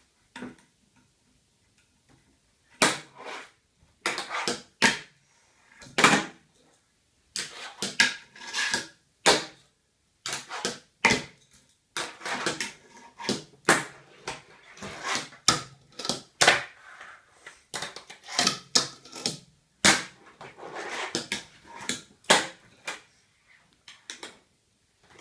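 Fingerboard on a wooden fingerboard ramp: irregular sharp clacks of the board popping and landing on wood, with short rolling rattles of its small wheels between them.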